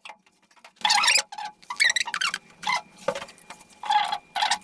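Small ratcheting bike torque wrench clicking in about eight short strokes, each a fraction of a second, as camshaft bearing cap bolts on a 2.7 TDV6 diesel head are run down for the first 1 Nm tightening stage.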